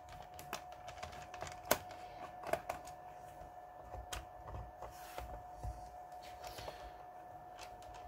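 Small screwdriver turning out the screws of a plastic laptop drive-bay cover: faint, irregular clicks and ticks of metal on plastic, with a few sharper clicks.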